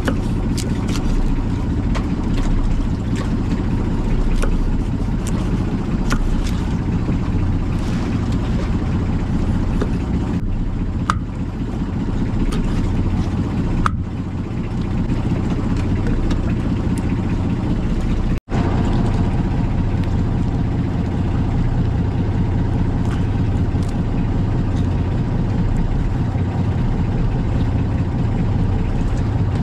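Fishing boat's engine running at a steady speed, a constant low drone that briefly cuts out about eighteen seconds in.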